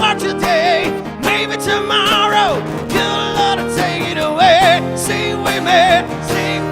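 Live rock band playing: strummed guitar chords under a high lead melody whose held notes waver with vibrato, one note sliding down about two and a half seconds in.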